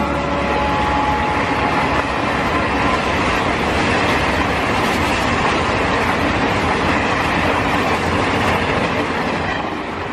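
Passenger train passing at speed with a steady, loud rolling rush from its wheels and coaches. The last of a horn blast dies out in the first moment, and the sound starts to fade away near the end.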